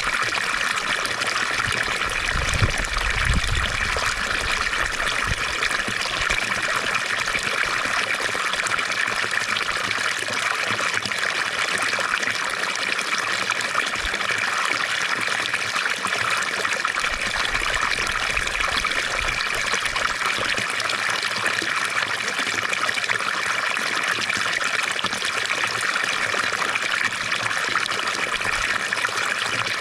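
Fountain water trickling and splashing steadily, with a few low bumps about three seconds in.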